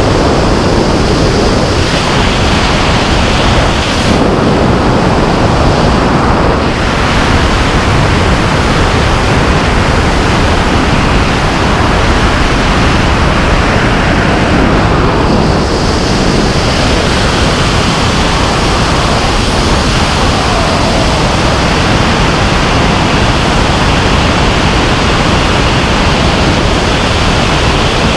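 Loud, steady rush of wind over a head-mounted GoPro's microphone in wingsuit freefall flight.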